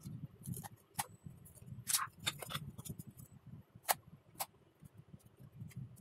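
Scattered light clicks and taps from handling a hot glue gun and fitting a thin wooden strip into a plywood box. There is a cluster of clicks about two seconds in and two sharp ones near four seconds, over a low background rumble.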